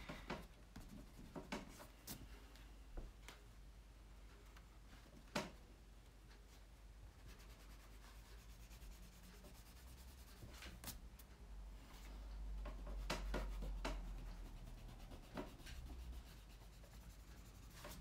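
Faint scratching and rubbing of a pencil shading on a sketchbook page, with scattered light taps. A low rumble swells briefly about two-thirds through.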